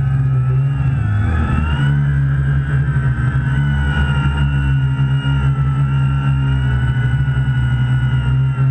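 Quadcopter's electric motors and propellers running in flight, heard up close: a steady loud buzz with a higher whine that wavers in pitch, dipping and rising about a second in as the motors change speed.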